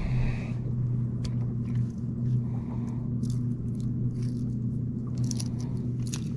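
A steady low motor hum on a fishing boat, with scattered light clicks and rattles of handling on top.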